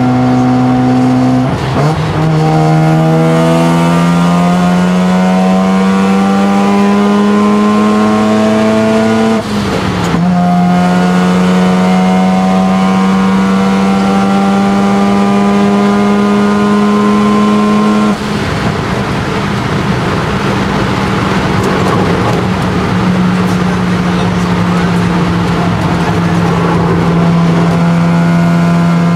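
Mazda RX-7 FD3S's single-turbo 13B rotary engine from the cockpit, pulling through the gears. The revs climb, drop at an upshift about one and a half seconds in, climb again, and drop at another upshift near ten seconds. After a long climb the engine note gives way around eighteen seconds to a rush of wind and road noise, then settles to a steady drone.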